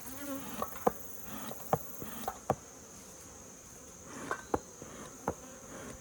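Honeybees buzzing around an opened hive, with about nine short, sharp buzzes as single bees dart close by, over a steady high-pitched insect drone.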